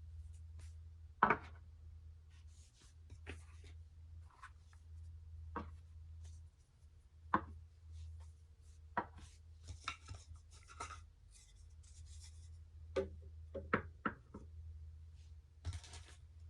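Glass marbles rolling and clicking along a toy marble-run track, with irregular sharp clicks and knocks and short stretches of rolling hiss, over a steady low hum.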